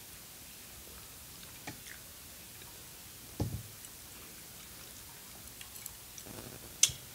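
Sparse, quiet noodle-eating sounds: a faint click, a soft low bump about three and a half seconds in, then a sharp click near the end as a metal fork knocks the noodle bowl.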